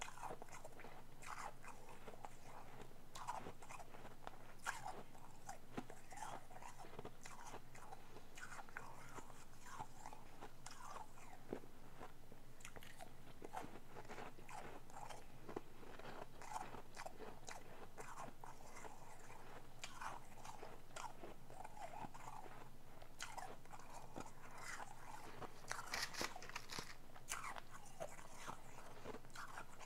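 Ice being bitten and chewed: repeated sharp crunches throughout, coming faster in a dense run near the end.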